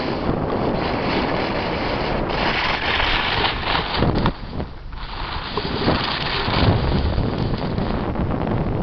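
Loud wind rushing over the camera's microphone during a fast descent on a snow slope, mixed with the scrape of sliding over snow. It eases briefly about halfway through.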